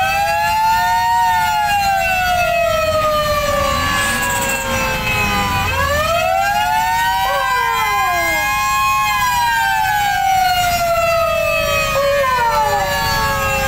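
Horn of a decorated show truck sounding a chord of several tones that sweeps up and then slides slowly down, like a siren, twice over. Shorter falling tones cross it about halfway through and again near the end.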